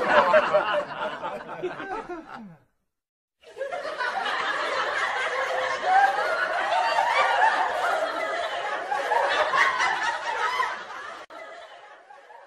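Laughter: a burst that stops about two and a half seconds in, then after a short pause a longer stretch of laughing that fades out near the end.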